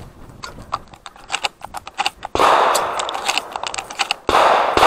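Quick light clicks and rattles, then two loud gunshots about two seconds apart, each trailing off slowly.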